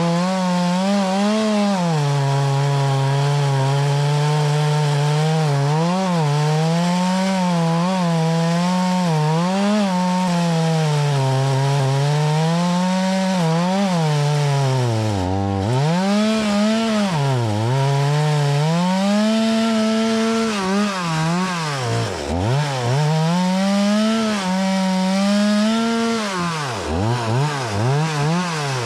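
Stihl MS 180 C-BE two-stroke chainsaw running at high revs while cutting through oak and maple logs. Its pitch wavers under load and drops sharply several times in the second half as the chain pulls down in the wood.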